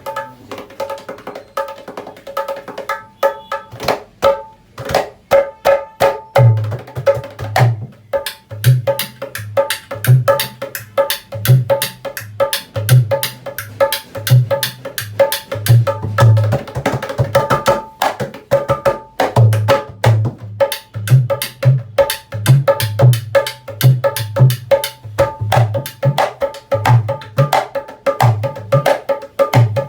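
A freshly repaired dholak being played for a tone check: quick ringing strokes on the high head throughout, joined about six seconds in by deep strokes on the bass head in a rhythmic pattern.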